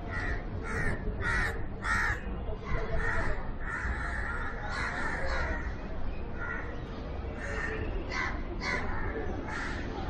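Crows cawing over and over: a quick run of caws about half a second apart in the first two seconds, then more scattered caws, over a steady low rumble.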